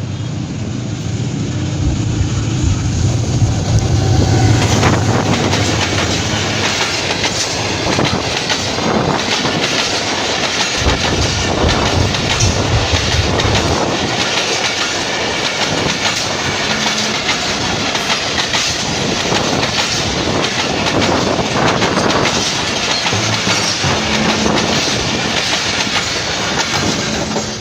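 Passenger train passing at speed. A deep rumble swells over the first few seconds, then a fast, continuous clatter of wheels over rail joints carries on to the end.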